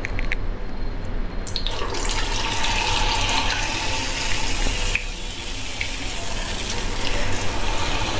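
An urad dal vada (medu vada) dropped by hand into hot oil in an iron kadai, deep-frying with a steady, loud sizzle of bubbling oil that starts about one and a half seconds in.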